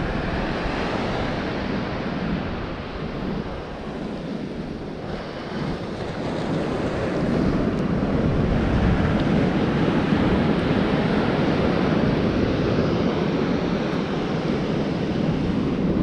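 Steady rush of surf breaking on a sandy beach, with wind blowing on the microphone; it grows louder about seven seconds in.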